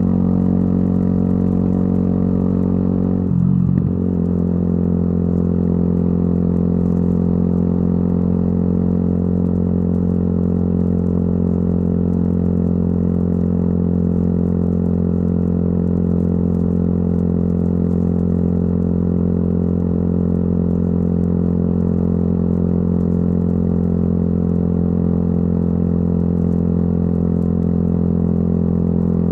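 Exhaust note of a Yamaha YZF-R125's 125 cc single-cylinder four-stroke engine through a modified exhaust, running at a steady engine speed, with a brief break in the note about three and a half seconds in.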